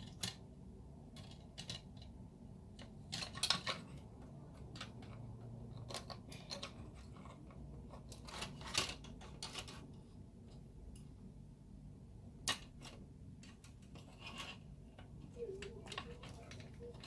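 Plastic model kit part being cut free from its runner: scattered sharp clicks and snips of cutters biting through the plastic sprue, with the part being handled, loudest about three and a half and nine seconds in.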